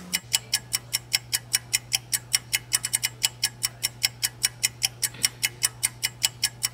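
Clock-ticking sound effect: fast, even ticks, about five a second, over a faint steady hum, standing for time passing while a face mask sets.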